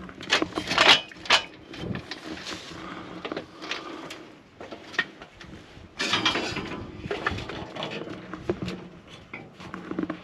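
Climbing an aluminium stepladder: boots knocking on the metal rungs and the ladder clanking and rattling under the climber's weight. A cluster of sharp clanks comes in the first second and a half, with more knocks through the rest.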